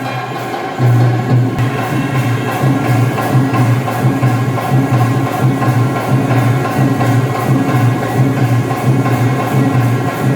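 Background music with a steady beat, bass and tambourine-like percussion.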